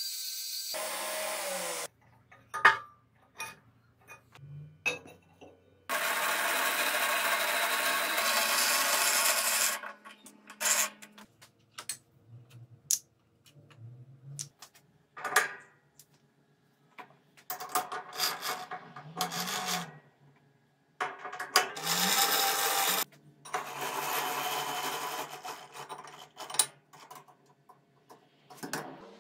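Belt grinder running with a steel disk's edge pressed to it, stopping about two seconds in; then clinks and knocks of steel parts being handled, several long bursts of power-tool noise, and a lathe chuck key being turned near the end.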